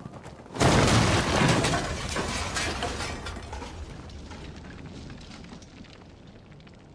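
A sudden loud crash and breaking about half a second in, followed by crackling, clattering debris and a low rumble that fade away over several seconds: a test flight with vertical maneuvering gear ending in a smash-up.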